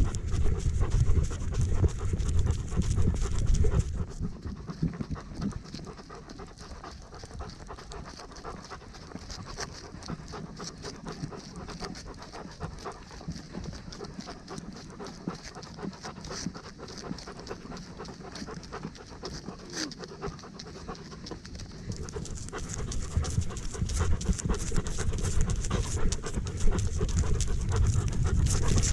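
Dog panting close to the microphone, with many quick ticks and rubbing from its movement. A heavier low rumble fills the first few seconds and builds up again over the last several.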